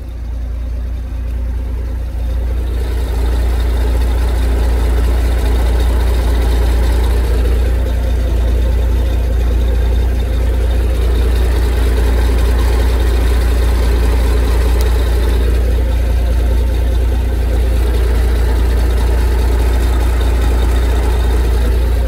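International semi tractor's diesel engine running steadily. It picks up a little about two to three seconds in.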